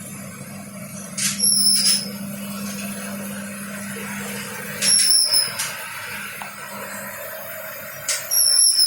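Commercial rack conveyor dishwasher running, with a steady hum that stops about five seconds in. Three loud hissing bursts with a high squeal come roughly every three and a half seconds.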